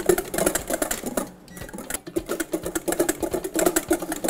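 Wire whisk beating egg-yolk sabayon in a stainless steel bowl, the wires striking the bowl in a fast, even rhythm of strokes with a short pause about a second and a half in. The sabayon is being whisked over a bain-marie until it binds and thickens.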